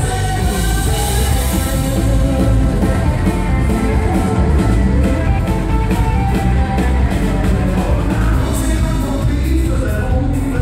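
Live rock band playing: electric and acoustic guitars and drums, with a man singing.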